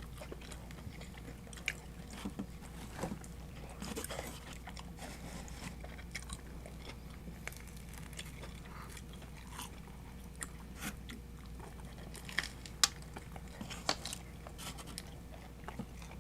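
Close-miked eating sounds: irregular crunchy bites and chewing of Domino's pizza crust, heard as scattered short crackles and clicks.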